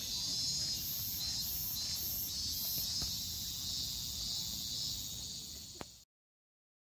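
Steady high-pitched insect chorus with a pulsing upper layer, over a low rumble. It cuts off abruptly about six seconds in.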